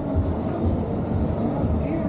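Music with a heavy, pulsing bass line.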